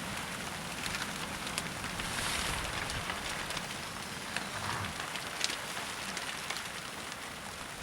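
Steady rain pattering, with scattered sharper drop ticks and a low rumble of wind.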